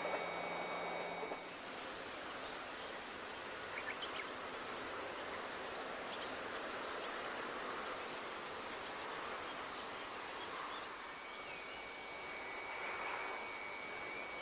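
Steady high-pitched chorus of insects, which starts to swell about a second and a half in and eases off somewhat near the end.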